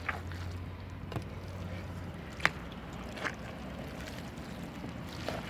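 Spoon stirring a pot of freshly cooked porridge, with three short light knocks spread through the first three and a half seconds. A low steady hum stops about two seconds in.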